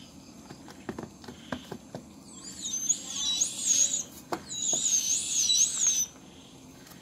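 Sugar glider crabbing: a harsh, high, wavering buzz-chatter that starts about two seconds in and stops sharply near the end, as a hand reaches toward the feeding gliders. This is the gliders' defensive alarm call. It is preceded by a few faint clicks.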